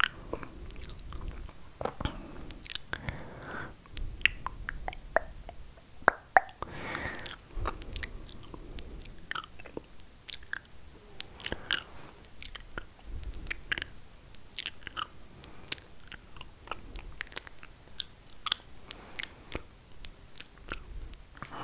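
ASMR mouth sounds made close to the microphone: an irregular run of sharp wet clicks and smacks of tongue and lips, with a few soft breathy swells in between.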